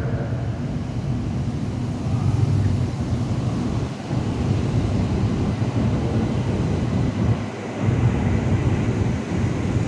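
CRH2A high-speed electric multiple unit pulling into the platform and slowing, a steady rumble of wheels and running gear, with wind buffeting the microphone.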